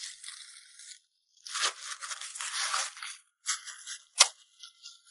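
Dry corn husks being torn and stripped off a cob by hand, in a few scratchy ripping bursts with a sharp crack about four seconds in.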